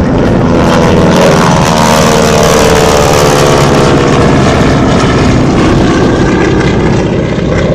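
North American T-6 Harvard's nine-cylinder Pratt & Whitney R-1340 radial engine and propeller, running loud in a low flypast; the pitch slides down over a few seconds as the aircraft passes.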